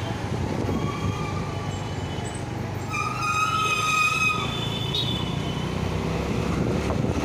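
City street traffic with a steady low rumble. A vehicle horn sounds for just over a second about three seconds in, with a fainter, shorter honk about a second in.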